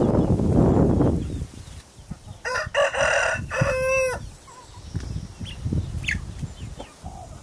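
A rooster crows once, about two and a half seconds in, a call lasting about a second and a half, followed by a few faint short calls from the flock. A low rumbling noise fills the first second and a half.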